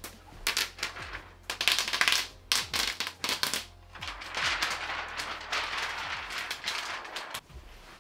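Protective plastic film being peeled off a TV screen and handled: irregular crackling and rustling in ragged spurts, cutting off abruptly near the end.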